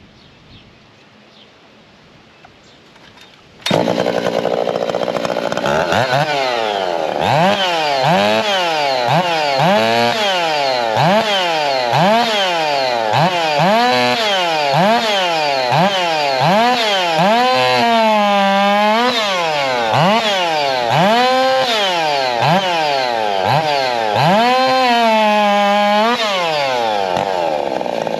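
Poulan gas race chainsaw starts about four seconds in, then runs with its throttle blipped up and down about once a second. Twice it holds at lower revs for a second or more, as if under load in a test cut.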